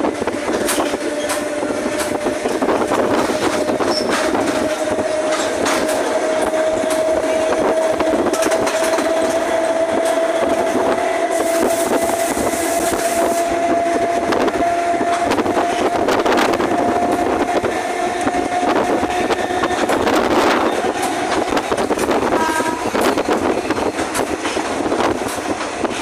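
Toshiba electric multiple-unit train running at speed, heard from inside the car. A steady motor whine rises slowly in pitch over the clatter of the wheels on the rails, then drops out about twenty seconds in.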